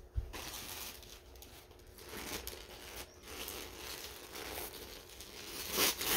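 Paper gift wrapping rustling, crinkling and tearing as a present is unwrapped, in irregular handfuls, loudest near the end. A short low knock comes just after the start.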